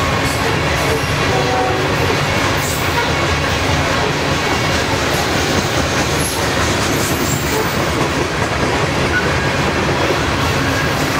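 Freight train's coal cars rolling past at speed: a steady, unbroken rumble and rush of steel wheels on the rails.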